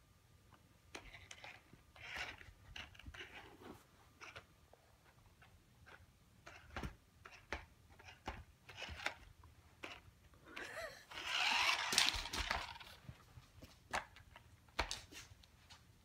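Toy remote-control car's small electric motor whirring as it drives across carpet, loudest for about two seconds in the second half, among scattered light knocks and taps.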